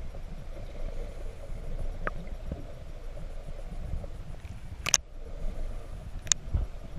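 Muffled underwater noise picked up by a camera held just below the sea surface: a steady low rumble of moving water, with two sharp clicks about five and six and a half seconds in.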